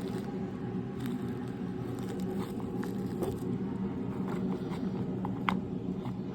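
Light scattered clicks and taps of a package being handled, with one sharper click about five seconds in, over a steady low hum.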